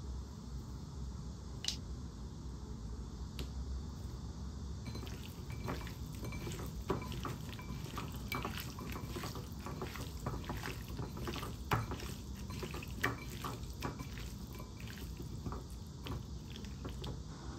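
Hands squishing and mixing raw chicken thigh pieces with salt and sliced onion in a ceramic bowl: irregular wet squelches and small slaps, which become busy about five seconds in.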